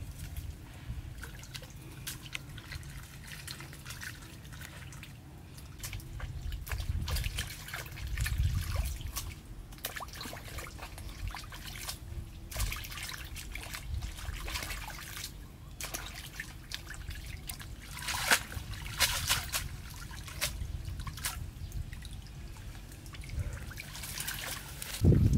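Pond water splashing and trickling as pig intestines are washed by hand in a woven bamboo basket, with water dripping and draining through the basket as it is lifted. A run of louder splashes comes about two-thirds of the way through.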